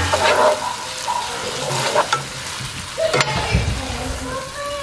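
A metal slotted spoon stirring shredded chicken and barbecue sauce in a hot nonstick skillet, scraping the pan over a steady sizzle, with a few sharp clicks of the spoon against the pan.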